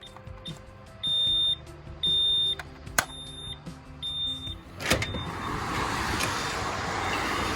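Electronic security alarm beeping: four loud, high-pitched beeps about half a second long, one a second, with two sharp clicks. From about five seconds in, a steady rushing noise takes over.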